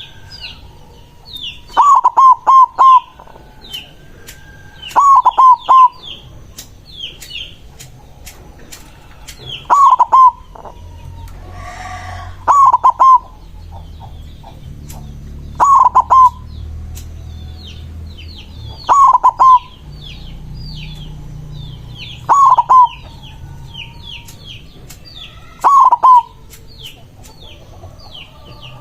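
White zebra dove (perkutut) singing its loud cooing song: a quick phrase of three or four notes, repeated about every three seconds. Fainter, higher chirps of small birds sound between the phrases.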